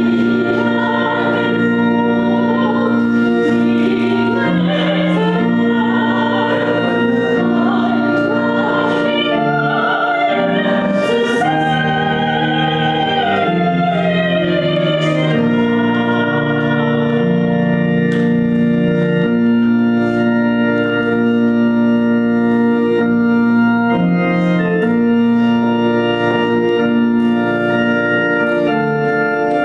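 Organ playing slow, held chords, with a singing voice carrying a melody over it through the first half, then the organ alone.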